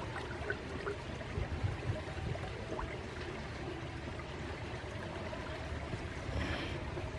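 Swollen, fast-flowing muddy river rushing steadily past the bank, its current running high after days of rain.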